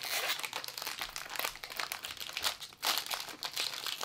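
Baseball cards being handled and flipped through by hand: a busy run of small papery clicks, slides and crinkles.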